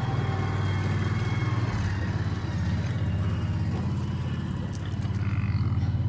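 Engine of a John Deere Gator utility vehicle running steadily as it drives slowly, with wind buffeting the microphone.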